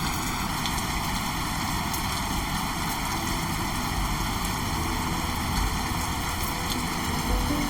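Steady rush of typhoon wind and rain, with low gusts buffeting the microphone now and then.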